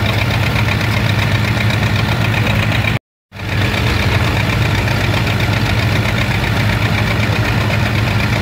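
Antique tractor engines and a threshing machine running together in a steady mechanical drone. The sound cuts out completely for a moment about three seconds in, then comes back.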